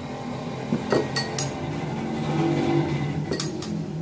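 Spatula knocking and scraping against an aluminium cooking pot while mixing rice and vegetables, with a few sharp clinks about a second in and again near the end, over a low steady hum.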